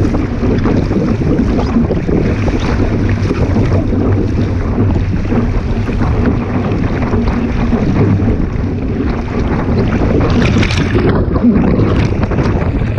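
Strong wind buffeting the microphone, over the rush and slap of water from a boat under way.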